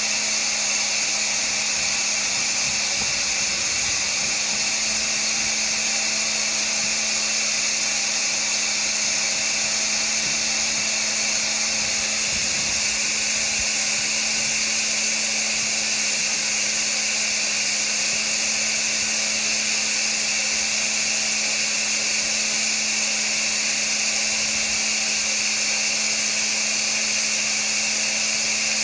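Electric motor of an upholstery-cleaning machine running steadily: a constant high whine and hiss over a low hum.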